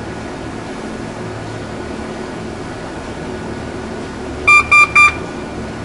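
Three short, loud electronic beeps in quick succession, about a quarter-second apart, over a steady low hum.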